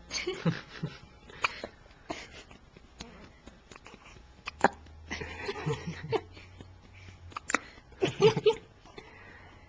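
Newborn baby hiccupping, a short sharp hiccup every second or so, with small voiced baby noises in between.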